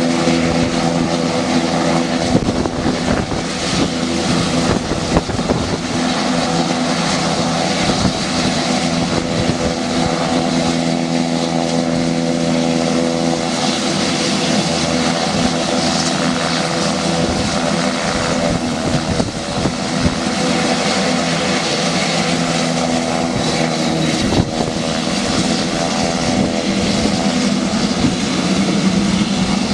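A-29 Super Tucano's PT6A turboprop engine and propeller running as the aircraft taxis: a steady drone of several held tones over a turbine hiss.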